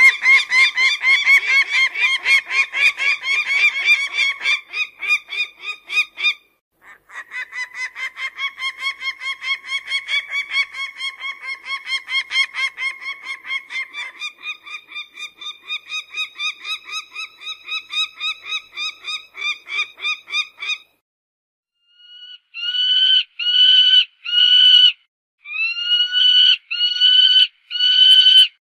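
Peregrine falcon calling. First comes a long, fast run of repeated calls, several a second, which breaks off about two-thirds of the way through. After a short pause come slower separate calls, about two a second in short groups, each sliding up at its start.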